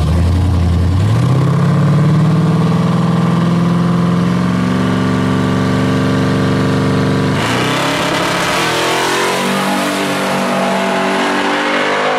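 Twin-turbo V8 of a box Chevy Caprice drag car, its revs climbing steadily for several seconds. About seven seconds in the sound turns abruptly into a harsh rush of noise as the car launches and accelerates away down the strip.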